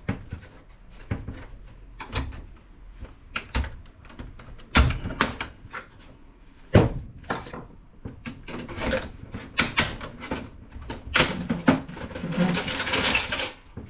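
Irregular clicks, knocks and rattles of plastic and metal parts of a desktop PC case being handled and pulled apart, with two louder knocks about five and seven seconds in and a busier stretch of clatter near the end.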